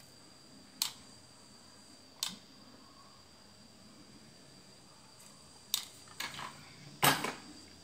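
A handful of short, sharp clicks and taps from hands working wires and a soldering iron on a circuit board, the loudest near the end. Under them is a low steady hiss with a faint high tone.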